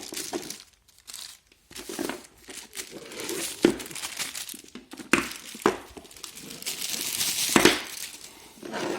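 Plastic packaging crinkling and rustling as a pressure washer lance is unwrapped from its box, with several sharp knocks as the parts are handled.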